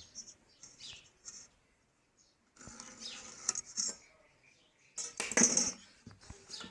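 Scattered light knocks and clatter of hard objects being handled, with a louder scraping rustle about five seconds in.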